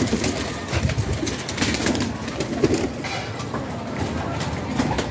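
Domestic pigeons cooing again and again, with scattered soft clicks and knocks in between.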